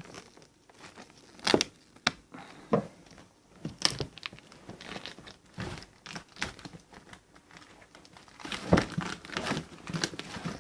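Packaging being opened by hand, crinkling and tearing in irregular crackles and sharp clicks, busier near the end.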